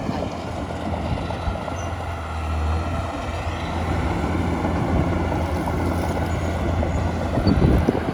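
Heavy diesel engine of an earthmoving machine running steadily under load, with a brief louder surge near the end.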